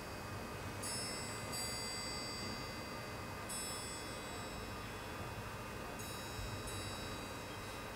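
Soft high-pitched metal chimes struck four times at irregular intervals a second or two apart, each note ringing on and fading slowly, within a hushed stretch of the orchestral piece.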